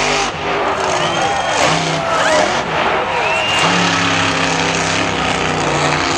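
A monster truck's engine runs hard as the truck jumps over crushed cars and drives off across the dirt. It is mixed with the steady noise of a large crowd, with scattered shouts and voices.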